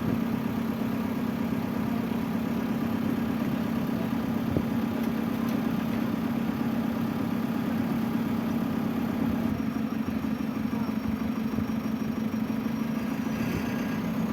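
Truck engine idling steadily with an even low hum.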